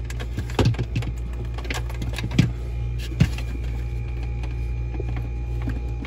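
Scattered plastic clicks and knocks as a Samsung refrigerator's ice maker unit is handled and its wiring plug is unclipped, over a steady low hum.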